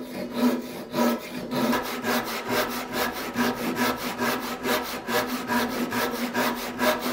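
Japanese ryoba pull saw ripping along the grain of a thick hickory board, its large rip teeth rasping through the hardwood in fast, even, continuous strokes.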